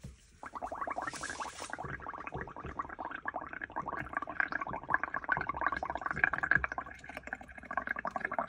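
Blowing through a straw into a tub of yellow ink mixture, bubbling continuously as foam builds up on the surface. It starts about half a second in and runs for about eight seconds.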